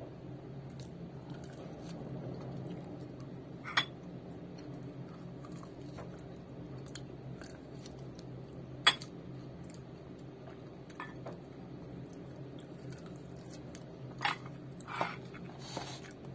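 Someone biting and chewing a frozen mango ice candy in its plastic bag: a few scattered sharp clicks and crunches, the loudest about four and nine seconds in, with a small cluster near the end, over a steady low hum.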